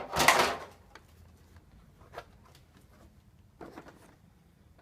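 Plastic TV frame being handled: a loud scraping clatter at the start, then a few light clicks and a short burst of knocks near the end.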